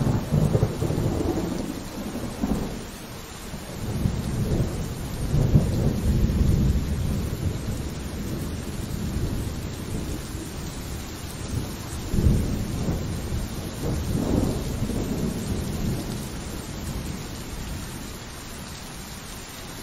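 Steady rain with rolling thunder. Low rumbles swell up and die away three times, the loudest about five to six seconds in.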